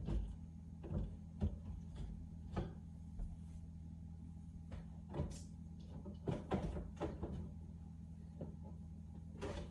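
Scattered knocks, clicks and clunks of kitchen cupboards and objects being handled, a cluster of them in the middle, over a steady low hum.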